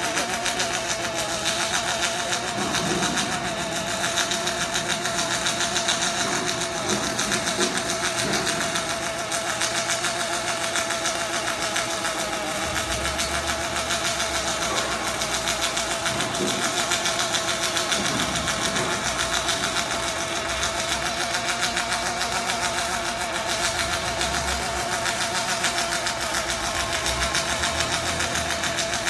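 Electric welding arc on steel, crackling and hissing steadily as a continuous weld is run while the positioner turns the piece, over a steady whine.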